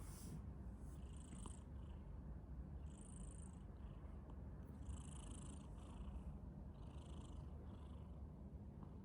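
A British Shorthair cat purring steadily, with soft breathy noises about every two seconds.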